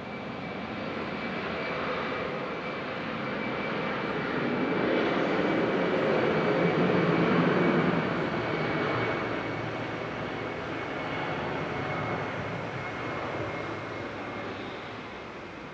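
Airbus A319's twin turbofan engines at takeoff power as the airliner accelerates down the runway, a steady high whine over the rumble. The sound swells to its loudest about halfway through as the aircraft passes, then fades as it moves away.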